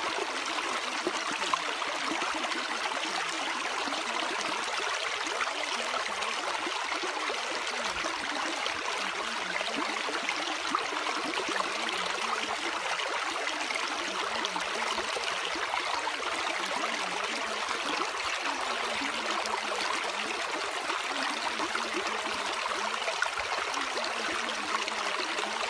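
Steady rushing of flowing water, like a stream, serving as the masking sound bed of a subliminal audio track.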